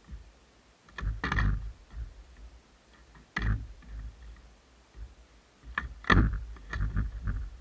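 Skateboard being popped and flipped on concrete, its tail snapping and the board clattering down onto the deck and wheels: a cluster of knocks about a second in, one hard knock a little after three seconds, and a run of several clacks from about six seconds in.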